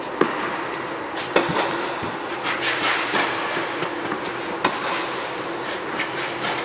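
Tennis rally: rackets striking the ball in several sharp pocks, the loudest just after the start and about a second and a half in, with shoes scuffing on the clay court, over a steady background rush.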